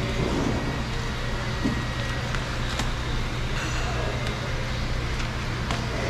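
Plastic vapour-barrier sheet on a Honda Civic's rear door crinkling and tearing in scattered small crackles as it is cut with a blade and peeled off its sticky sealant. Under it runs a steady low hum.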